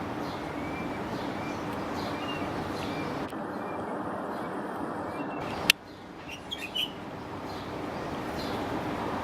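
Pet songbird giving short, faint chirps every half second or so over a steady rushing background noise. A sharp click comes a little past halfway, followed by a few brighter chirps.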